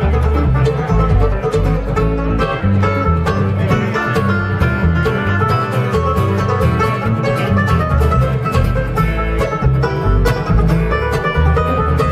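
Bluegrass band playing live, led by a flatpicked steel-string acoustic guitar running quick notes over an upright bass line.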